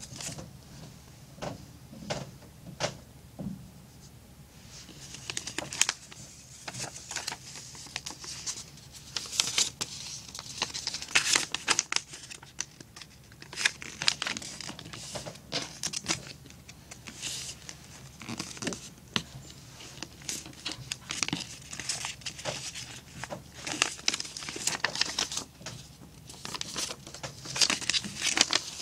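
A sheet of paper being folded and creased by hand: irregular rustling and crinkling with short, sharp creasing strokes, a few isolated taps in the first few seconds.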